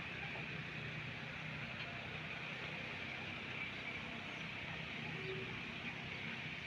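Steady, distant hum of engines under a constant hiss, with no distinct events.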